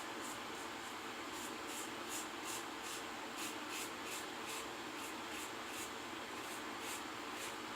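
Quiet, short scraping strokes of a GEM Micromatic single-edge safety razor cutting through lathered stubble, about two to three strokes a second.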